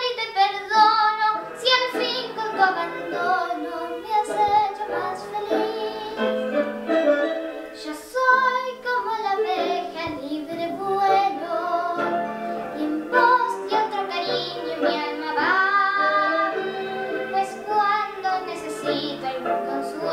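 A young girl singing a slow song, with vibrato on long held notes.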